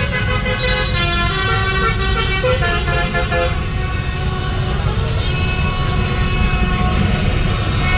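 Many vehicle horns honking at once in celebration, overlapping at different pitches, thickest in the first few seconds and thinning after, over the steady low rumble of dense motorbike traffic.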